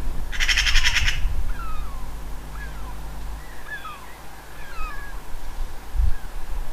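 Gulls calling overhead as they mob a bird of prey: a series of short cries, each falling in pitch, repeated over several seconds. A harsh, rapid rattling call comes first, about half a second in.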